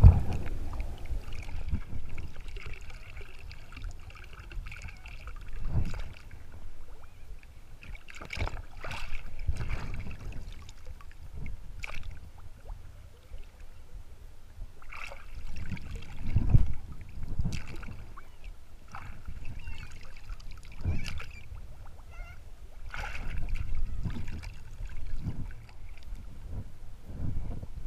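Choppy water lapping and sloshing against a camera held at the water's surface, with irregular splashes every second or few seconds over a low steady rumble.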